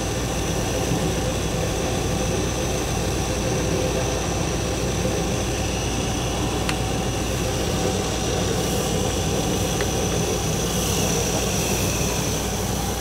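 Hardinge HLV-EM tool room lathe running steadily under power: an even hum from the motor and spindle drive with a faint high whine. A single light click about seven seconds in.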